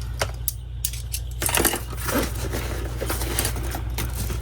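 Small metal carabiner clip clicking and clinking as it is handled and clipped onto a backpack, with rustling of the bag's fabric from about a second and a half in.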